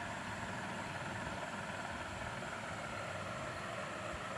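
A steady mechanical drone with a hiss.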